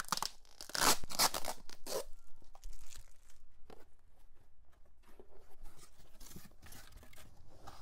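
Clear plastic packing tape being peeled off a cardboard carton: a few loud tearing pulls in the first two seconds. After that comes quieter rustling and scraping as the cardboard flaps are opened and the foam packing inside is handled.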